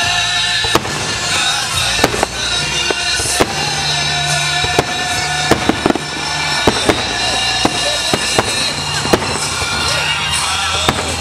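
Fireworks finale: sharp bangs and crackles going off at irregular intervals, several a second at times, over loud music with a steady bass line.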